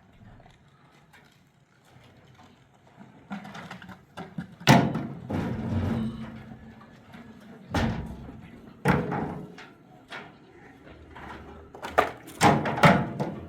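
A series of knocks and bangs, the loudest about five seconds in, with a quick cluster of sharp knocks near the end.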